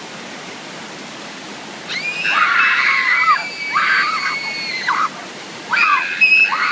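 Steady rush of a mountain waterfall and creek; about two seconds in a girl screams, a long high-pitched scream lasting about three seconds, and screams again near the end.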